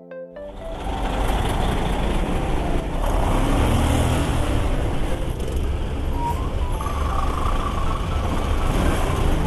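Heavy road traffic heard from a GY6 125 scooter creeping between trucks and cars: a steady rumble of engines and tyre noise.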